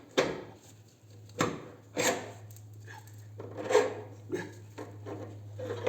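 Motorcycle front axle being struck from one side to drive it out of the wheel hub: about five sharp knocks at uneven intervals, with some scraping in between.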